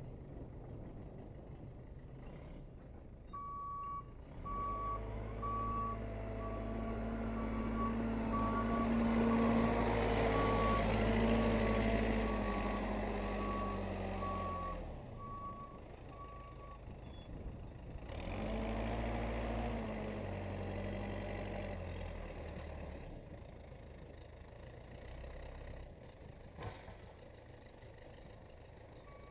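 Case 580C backhoe working, its engine revving up under load and easing off twice, with its reverse alarm beeping about once a second for much of the time as the machine backs up.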